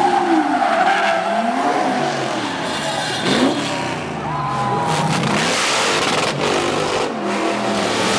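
Car engines revving up and down with tires squealing through burnouts and drifts. The sound cuts abruptly from one car to another a few times.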